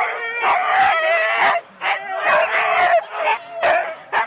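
A group of Siberian huskies barking and howling together, with short sharp barks over long, wavering howls that overlap without a break. This is the excited clamour of harnessed sled dogs held back at a race start.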